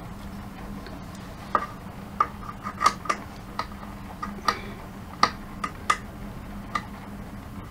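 Small metal screws and hardware being fitted by hand into a DIY CNC machine's bed carriage: about ten sharp, irregular clicks and taps with a slight metallic ring.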